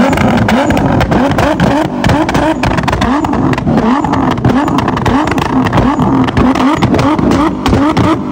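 Nissan GT-R twin-turbo V6 revved in quick repeated blips, about three a second, with sharp exhaust pops and bangs throughout: backfires from a flame-tuned exhaust spitting fire.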